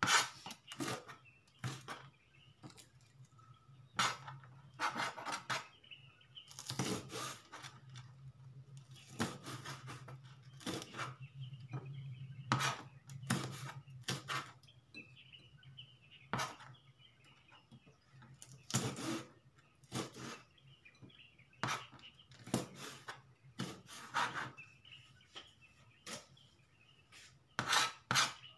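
Kitchen knife chopping red chilies and onion on a plastic cutting board: sharp knocks of the blade on the board, in irregular runs with pauses between them. A low steady hum runs underneath.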